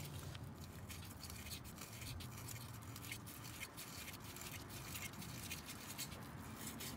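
Faint, irregular scratching and rubbing of a hand twisting a new oil filter onto its threaded mount.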